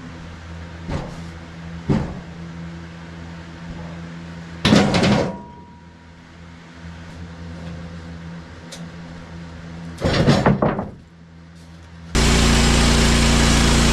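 Portable bandsaw sawmill's engine running steadily. Two loud, brief clattering noises come about five and ten seconds in. A loud, even rushing noise starts suddenly near the end.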